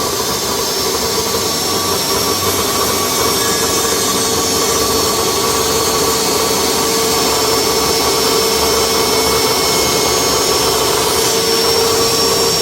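Table saw running at full speed with a steady high whine, then switched off near the end, its pitch falling as the blade winds down.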